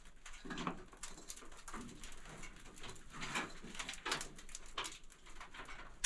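Irregular scuffs and knocks of shoes and hands on rock and timber as a person climbs a steep mine incline, with a short breath or grunt about half a second in.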